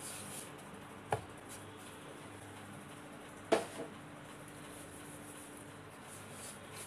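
Two sharp wooden knocks about two and a half seconds apart, the second louder, as a wooden rolling pin is handled against a bamboo chopping board while biscuit dough is pressed flat by hand. A faint steady hum runs underneath.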